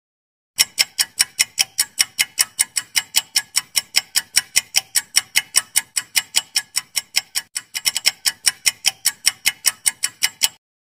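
Countdown-timer tick sound effect: rapid, even clock ticks at about five a second, starting about half a second in and stopping shortly before the end, with a brief stumble in the rhythm about three-quarters of the way through.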